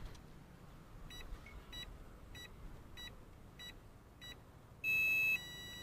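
Electronic speed controller of a brushless motor beeping on power-up as the 24-volt lithium polymer battery is connected: six short beeps about 0.6 s apart, then a loud, longer, higher beep and a quieter steady tone. Six beeps is the usual count for a six-cell battery, and the long tone signals that the controller is ready.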